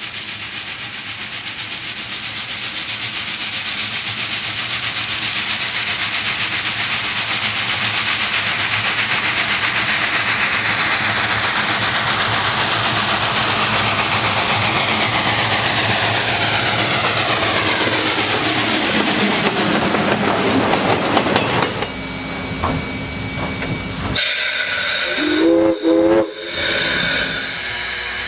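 Southern Railway 2-8-0 consolidation steam locomotive working toward and past at close range, its exhaust and rail noise swelling steadily. After a cut come short steam-whistle blasts with escaping steam, and a bell begins ringing near the end.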